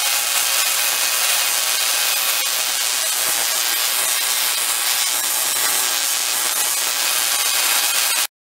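Spark-gap Tesla coil running: a loud, steady hissing crackle from the spark gap firing and the streamers discharging into the air, cutting off suddenly near the end.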